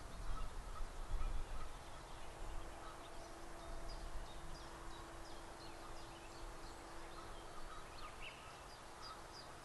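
Distant Canada geese honking, with a small songbird's short, high repeated notes from about the middle on. There is a low rumble in the first second or so and a faint steady hum.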